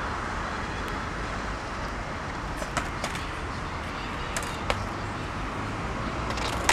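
City street ambience: a steady wash of traffic noise, with a few short sharp clicks about three and four and a half seconds in.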